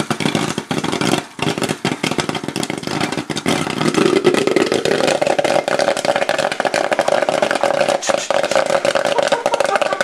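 Popcorn popping fast in a covered steel pot with a glass lid: a dense, irregular crackle of sharp pops over a steady rush.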